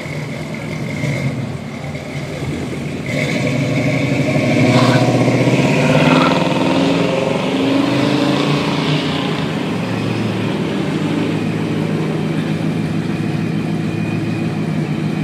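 Car engines pulling away one after another: a first-generation Chevrolet Camaro driving off, then a late-model Ford Mustang accelerating close by, loudest about five seconds in. After that an engine runs steadily.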